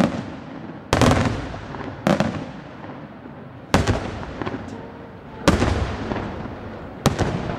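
Aerial firework shells bursting: five sharp bangs about a second and a half apart, each fading into a rolling echo.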